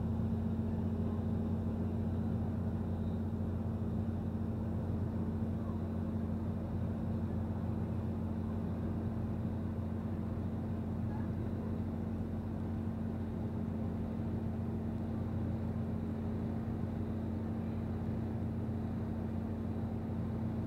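Steady low drone of a river cruise boat's engine, heard on board, holding an even pitch throughout.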